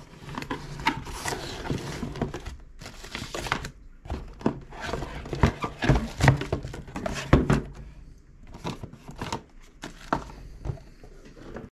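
Cardboard box being opened and unpacked by hand: card flaps rustling and scraping, plastic packaging crinkling, and a run of sharp knocks and thumps as the plastic energiser unit and its contents are handled and pulled out.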